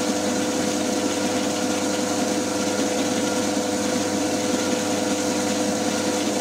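FDB Maschinen Turner 250x550 bench lathe with its 750 W motor running steadily at 620 rpm, with a steady whine from its gearing, while the cutter on power longitudinal feed takes a turning pass along a metal bar.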